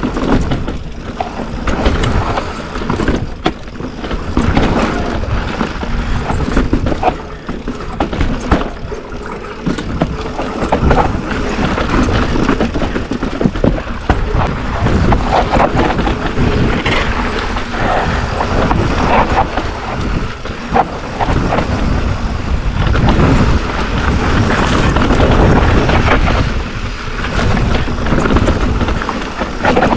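Mountain bike riding fast down rocky dirt singletrack: wind buffets the rider-mounted camera microphone with a heavy rumble, while the tyres roll over dirt and rock and the bike rattles and knocks over the bumps.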